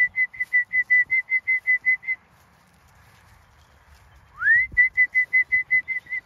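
A shepherd whistles to call in a ewe flock. A quick run of short high pips, about six a second, is followed about four seconds in by a whistle sliding up in pitch and another run of pips.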